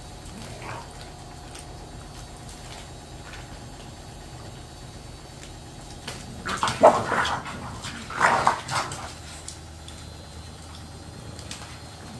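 A dog barks in two short, loud bouts, about six and a half and eight seconds in, in a squabble between an English bulldog and a smaller dog over a piece of chicken breast.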